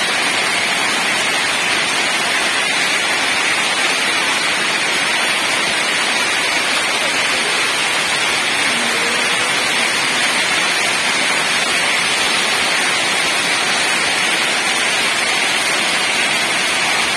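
Hailstorm: hail and heavy rain falling steadily outside, a dense, even hiss with no let-up.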